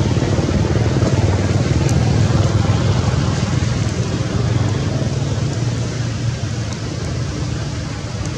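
A steady low motor rumble with a hiss over it, holding constant throughout.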